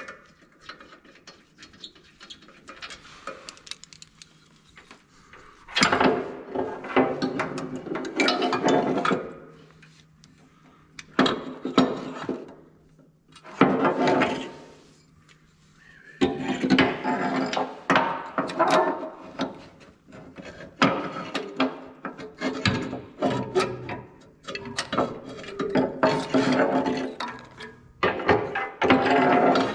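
Intermittent scraping, rattling and rubbing of metal and plastic parts as a replacement bucket level sensor and its bracket are handled and tried against a skid steer's bucket linkage. It comes in irregular bouts of a second or more, with short pauses between.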